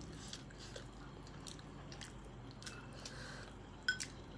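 Close-miked chewing and biting of food, soft wet mouth clicks, with one sharper click about four seconds in.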